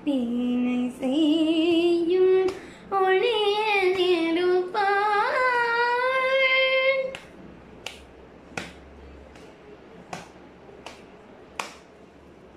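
A girl singing a Tamil devotional song unaccompanied, with shaking, ornamented held notes, ending on a long held note about seven seconds in. After that come soft, sharp hand claps about every three quarters of a second as she keeps the beat.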